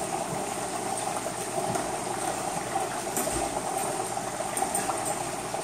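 Hot oil bubbling and sizzling steadily in a Masterbuilt Butterball XL electric fryer around a whole turkey just lowered into it.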